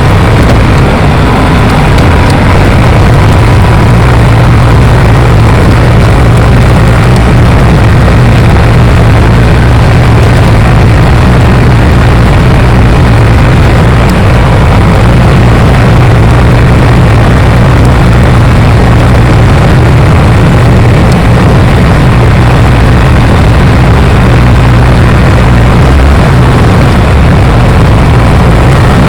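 Bulldozer's diesel engine running loudly and steadily with a deep, even drone and no revving.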